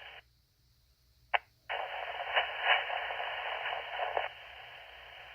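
Fire-ground two-way radio: a short squelch click, then a few seconds of hissing static from a garbled, unreadable transmission, loud at first and weaker for its last second.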